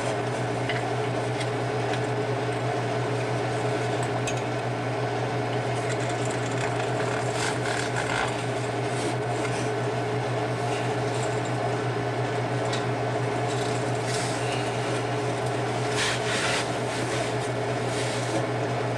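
Steady machine hum, like a motor or fan running, with faint scattered scraping and ticking.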